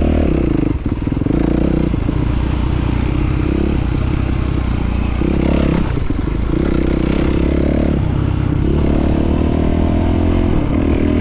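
Enduro motorcycle engine running under way off-road. Its revs rise and fall, with several brief drops where the throttle closes and picks up again.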